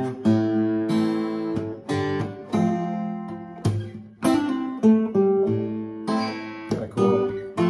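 Acoustic guitar playing a chord progression in a low voicing with a bass-string lick. The chords are struck in a steady rhythm and left to ring.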